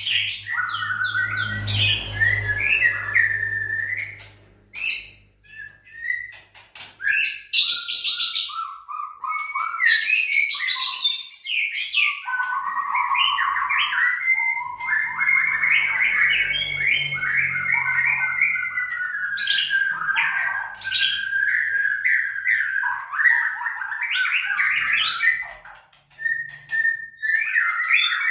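White-rumped shama (murai batu) singing a long, varied song of fast whistled and chattering phrases, with short breaks about five seconds in and near the end.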